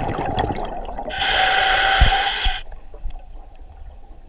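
Scuba diver breathing underwater through a regulator: a bubbling rush of exhaled air, then a hissing inhale of about a second and a half that cuts off abruptly.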